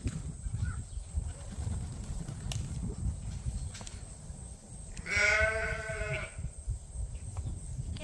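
A sheep bleats once, about five seconds in: one long wavering call, over a steady low rumble.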